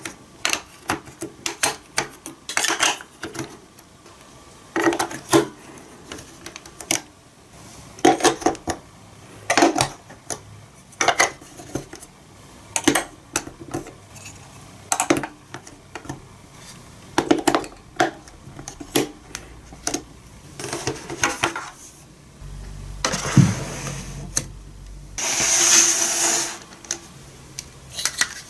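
Large plastic building blocks and marble-run track pieces being handled and pressed onto a plastic baseplate: irregular clicks and clacks of plastic on plastic, with a brief scraping rustle near the end.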